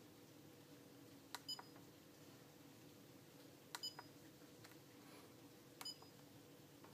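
Short key beeps of a RigExpert AA-200 antenna analyzer as its buttons are pressed to move through the menus: a quick pair about one and a half seconds in, another pair near four seconds, and a single one near six seconds, over faint room hum.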